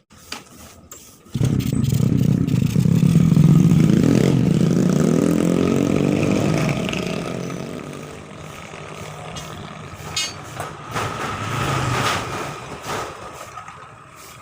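An engine catches suddenly about a second and a half in and runs, its pitch rising over the next few seconds. It then drops back and runs lower, with a few knocks.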